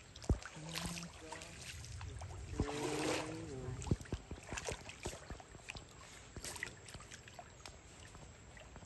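Water splashing and sloshing as monkeys bathe in a pool, with many scattered light clicks and knocks and a louder splashy swell about three seconds in.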